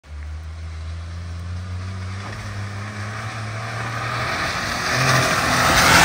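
Tata Altroz hatchback driving, its engine giving a steady low hum, with a hiss that grows louder over the last two seconds.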